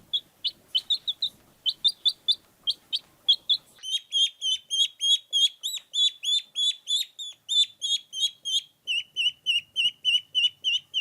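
Baby chicks peeping: high, short peeps, scattered at first, then about four seconds in a quicker, steady run of about four peeps a second.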